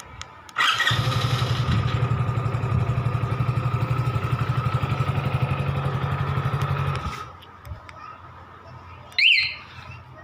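Hero Splendor Plus BS6's single-cylinder engine starting, typical of the remote-start feature, and running at idle for about six seconds before cutting off abruptly. About two seconds later, the alarm unit gives a short electronic chirp.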